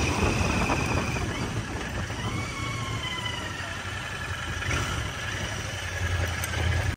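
Royal Enfield Interceptor 650's parallel-twin engine running at low road speed on its stock exhaust, with a thin high whistle that comes and goes over the engine note, gliding slightly in pitch.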